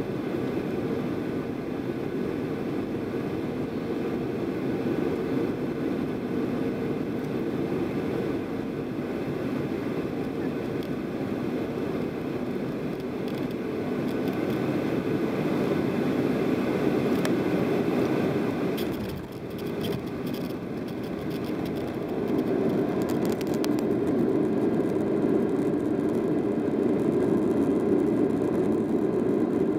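Cabin noise inside a Boeing 737-800 landing: the steady roar of its CFM56 engines and the airflow, with rattling through the cabin from about halfway through as the aircraft comes onto the runway. The noise dips briefly, then builds and stays loud in the last third, as the engines spool up for reverse thrust on the rollout.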